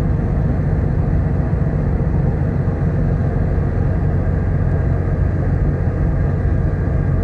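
Steady low drone of the car ferry Kuniga's engines, with an even rumble from the ship.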